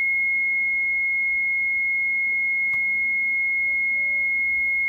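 A Mitsubishi Shogun's warning buzzer sounds one continuous, steady high-pitched tone. The mechanic believes it comes from the car's HBB brake unit fault, which the unit reports as a fault in the electric pump motor and the accumulator.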